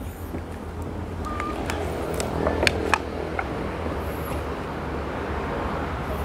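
Steady low background rumble, with a few light clicks and rustles from handling orchid seedlings in a plastic seedling tray, about two and a half to three and a half seconds in.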